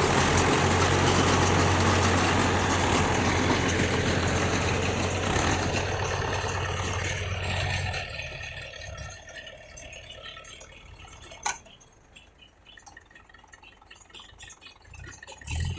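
Mahindra 475 Yuvo tractor's diesel engine running steadily with a deep hum, then about eight seconds in the sound drops away sharply and stays much quieter, with one sharp knock near the end.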